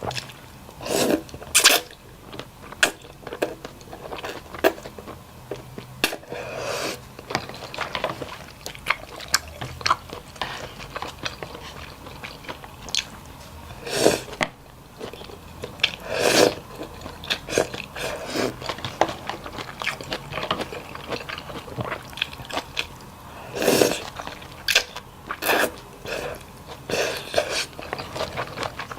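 A person eating close to the microphone: wet chewing and biting with many small clicks, and a louder noisy bite or slurp every few seconds.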